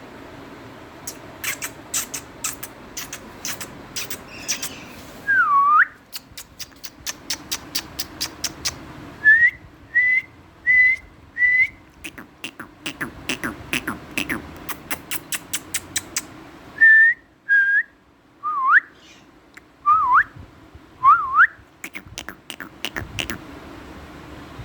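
Runs of sharp clicks, several a second, broken by short whistled notes, some held level and some swooping down and back up.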